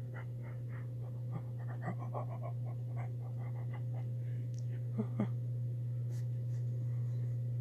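A steady low hum, with faint voices in the background and a few soft taps.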